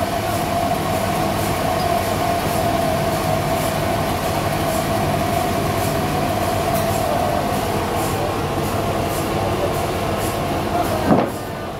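Band sawmill running, most likely cutting through a log: a steady high-pitched whine over a continuous noisy rush. Near the end there is a brief sweeping sound, and then the sound drops a little quieter.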